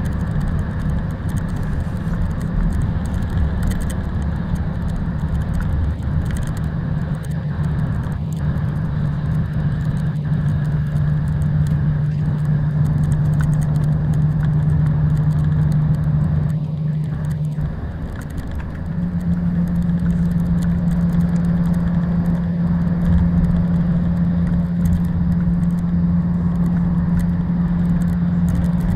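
Coach cabin noise at motorway speed: a steady low engine drone over road and tyre noise. About two-thirds of the way through, the drone dips briefly and then settles at a slightly higher pitch.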